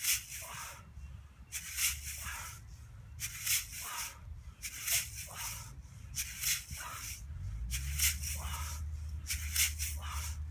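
A sharp hissing rush about every second and a half, seven in all, one with each repeated golf-style swing of a ball-ended training bar. Wind rumbles on the microphone underneath, stronger from about two-thirds of the way in.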